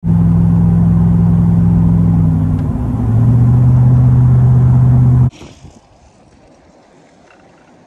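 Car engine and road drone heard inside the cabin at highway speed: a loud, steady low hum that drops in pitch a little under three seconds in. It cuts off suddenly about five seconds in, leaving only a faint steady hiss.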